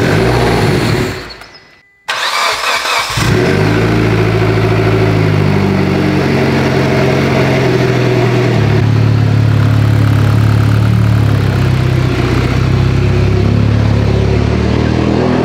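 Mitsubishi Lancer Evolution X's brand-new 2.0-litre turbocharged four-cylinder (4B11T) on its first start. The starter cranks, stops, cranks again, and the engine catches about three seconds in, then runs on at a steady idle.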